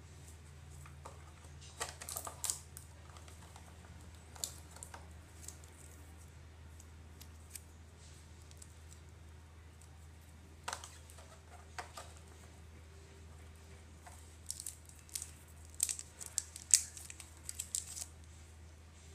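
Light clicks and taps of small objects being handled, coming in scattered clusters and busiest near the end, over a steady low hum.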